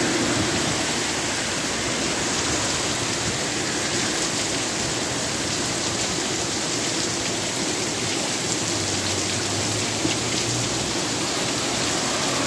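Torrential rain pouring down, a dense steady hiss of rain hitting the street and surrounding surfaces.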